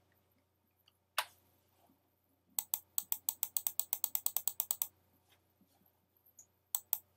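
Computer keyboard keys clicking: a single keystroke about a second in, then a quick, even run of about twenty keystrokes, roughly ten a second, and two more near the end.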